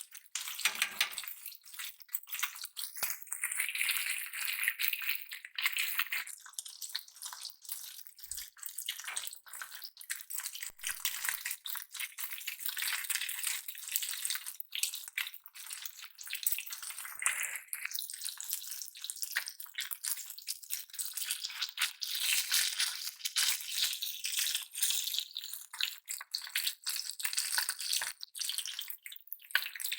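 Small fish frying in hot oil, sizzling steadily with many small crackling pops.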